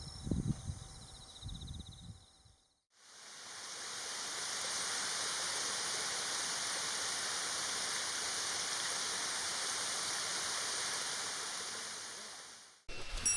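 Waterfall's steady rush of falling water, fading in about three seconds in and fading out just before the end. Before it, a few low thumps and insects chirping, cut off by a moment of silence.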